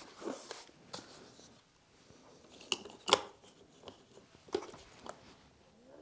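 Scattered clicks and knocks from handling a motorised pan-tilt head as it is fitted underslung onto the end of a camera jib arm, the sharpest knock about three seconds in.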